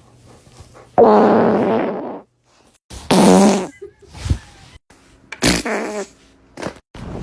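A series of farts with a buzzing pitch: a long one about a second in lasting about a second, a shorter one about three seconds in, and briefer ones later.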